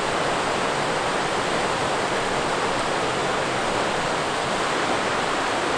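River rapids rushing with a steady, even sound of white water pouring over rocks.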